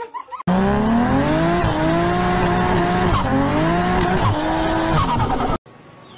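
Racing-car engine revving hard with tyres screeching, a car-drift sound effect. The engine's pitch climbs and drops back several times. It starts abruptly and cuts off suddenly near the end.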